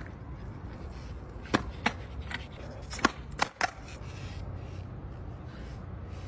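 Skateboard being popped and landed on concrete: about six sharp clacks of the tail and deck striking the ground, bunched together in the middle, over a steady low rumble.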